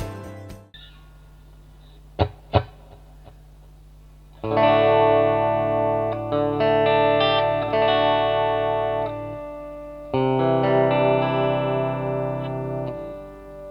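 DIY Telecaster-style electric guitar played through an effects unit with some distortion. Two short muted plucks, then two chords struck about six seconds apart, each left to ring out.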